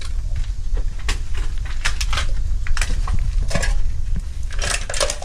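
Footsteps scrambling over loose rocks and debris, with irregular clinks and clatters of stones and cans knocked underfoot, over a steady low rumble.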